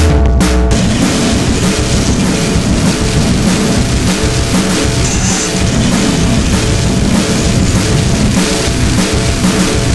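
Loud, dense heavy band music led by a drum kit: a few separate drum hits open it, then a continuous wall of sound with pounding drums.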